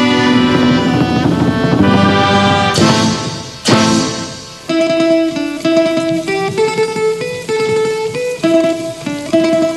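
Thai band music: the full ensemble plays for the first few seconds, then drops away about four seconds in. A sueng, the northern Thai plucked lute, carries a plucked melody of separate notes over a bass guitar.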